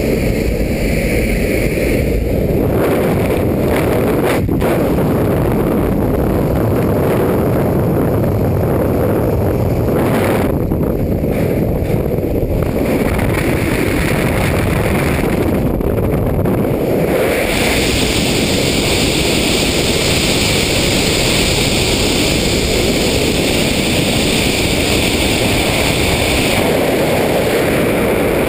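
Loud, steady wind noise rushing over a skydiver's helmet-camera microphone in freefall. It takes over about two seconds in, after the exit from the aircraft door.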